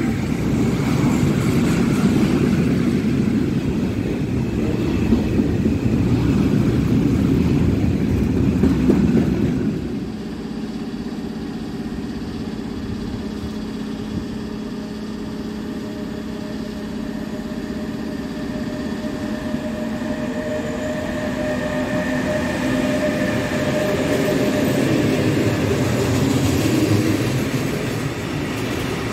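Freight train wagons rolling past close by: a loaded hopper train rumbles by loudly and stops abruptly about ten seconds in, then a container freight train approaches and its flat wagons roll past, growing louder towards the end.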